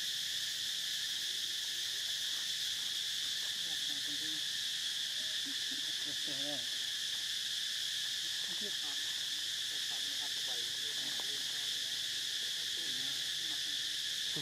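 Steady, high-pitched insect chorus that does not let up, with a few faint brief calls underneath now and then.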